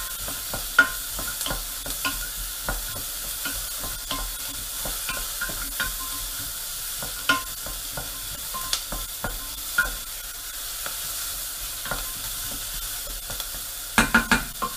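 Diced onion and garlic sizzling gently as they sweat in rendered pork-belly fat in a stainless steel pot, while a wooden spoon stirs them, scraping and knocking against the pot. A few louder knocks come near the end.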